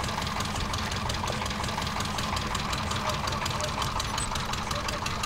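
Small wooden fishing boat's engine running steadily, a rapid even beat of firing strokes.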